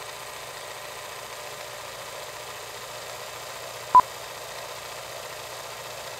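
Film-leader countdown: a steady hiss over a low hum, with a single short beep about four seconds in as the countdown reaches 2, the classic 'two-pop' sync beep.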